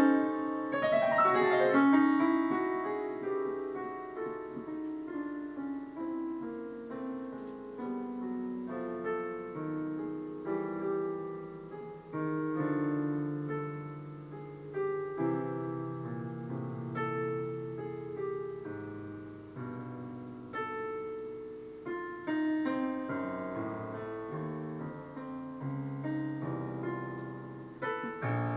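Digital piano played in a free improvisation: a running flow of notes and chords over a moving bass line, loudest in the opening seconds and softer after, with small swells.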